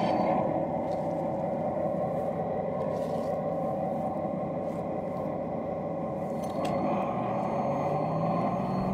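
Remote-controlled 5-inch-gauge model MaK 1200 diesel locomotive running along the track, its onboard sound module playing a diesel engine sound over the rolling of its wheels on the rails. About six and a half seconds in there is a click, and the sound then grows a little louder.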